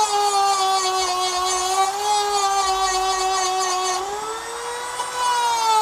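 Dremel rotary tool grinding into the steel of a Swiss Army knife, a steady high whine. The motor's pitch sags as the bit bears into the metal, rises for about a second around four seconds in as the load comes off, then sags again.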